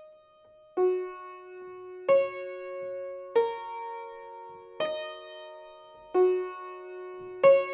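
Slow intro music on a keyboard instrument: six notes or chords struck about every second and a half, each left to ring and fade.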